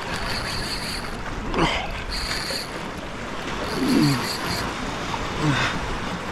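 Sea swell washing steadily over rocks, with a man's low grunts of effort, three falling groans, the loudest about four seconds in. A thin high buzz comes and goes several times.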